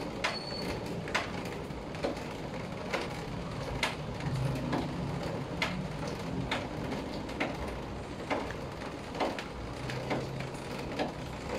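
Light, sharp clicks, roughly one a second, from the metal hose fitting and body of a small handheld bicycle pump being handled and screwed together, over a low steady background hum.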